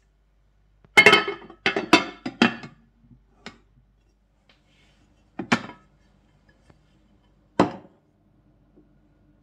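Glass lid clinking against a glass baking dish as it is set on and handled: three quick clinks about a second in, then two more single knocks later.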